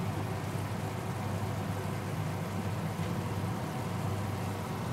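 Ground pork and onions simmering and sizzling in their own liquid in a frying pan while a wooden spatula stirs them, over a steady low hum.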